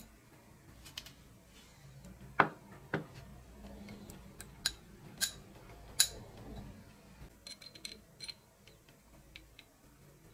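Sharp metallic clicks and taps from the small brass striker parts of a bicycle bell and its steel dome as they are handled and fitted with pliers and fingers. There are a handful of separate clicks, the loudest about two and a half seconds in, then a quick run of lighter ticks around eight seconds.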